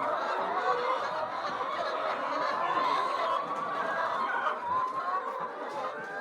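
A flock of laying hens clucking, many birds calling over one another without a break.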